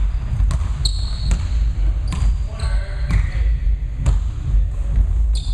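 Basketball game on a hardwood court: a ball bouncing as it is dribbled, sharp sneaker squeaks and running footsteps, over a steady low rumble.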